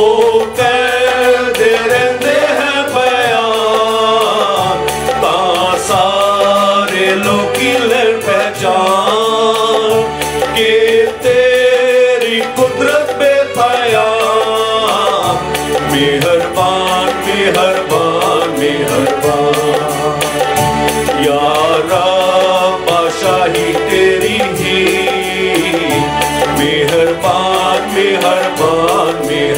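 Several men singing a worship song together into microphones, accompanied by a Yamaha PSR-S750 electronic keyboard.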